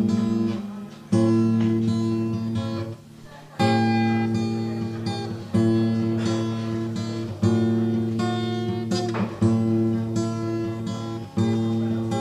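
Background music: an acoustic guitar strumming chords, a new chord struck about every two seconds.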